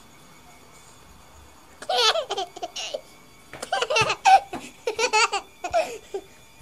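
A baby laughing in four short bursts of giggles, starting about two seconds in.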